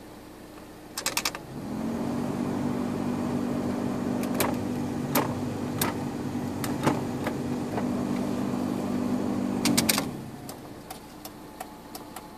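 Car heater blower fan switched on with a few clicks of the dashboard dial, running with a steady hum for about eight seconds with a few single clicks over it, then switched off with another quick run of clicks.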